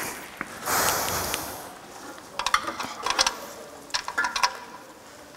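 Metal tools and engine parts being handled: a short rustle about a second in, then two quick clusters of sharp metallic clicks and clinks with a brief ring.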